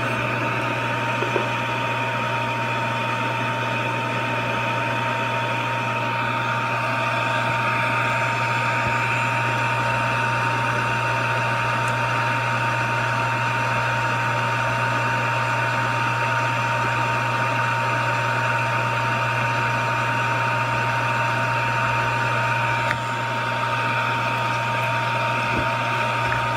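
Hot air rework station blowing steadily, a constant whine in its airflow over a low hum, as it reflows the solder under a replacement inductor on a laptop logic board. A single faint click near the end.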